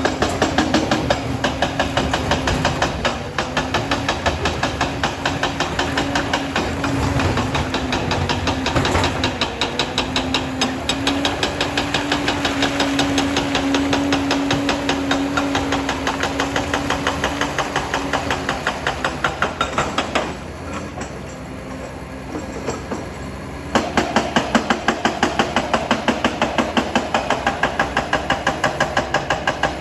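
Liebherr 746 crawler dozer working, its diesel engine running under a fast, regular clanking with a steady whine over it. It eases off for a few seconds about 20 seconds in, then comes back louder.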